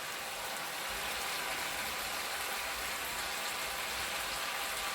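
Chicken pieces sizzling steadily in hot oil in a frying pan over high heat.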